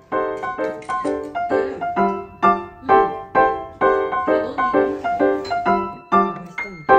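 Background music: a piano playing short, evenly struck chords, about two to three a second.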